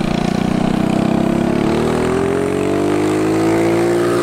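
A go-kart's small single-cylinder Predator 212 engine running under throttle: steady at first, then revving up in pitch from about a second and a half in as the kart accelerates, dropping back just at the end.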